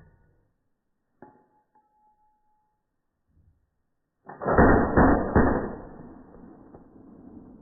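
Suppressed MAC-10 submachine gun in .45 ACP firing one short full-auto burst about four seconds in. The burst lasts about a second, then a fading echo trails off. A single small click comes about a second in.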